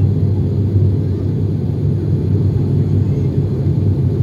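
Steady low drone of an IndiGo ATR 72-600's turboprop engine and propeller, heard inside the cabin as the plane climbs after takeoff.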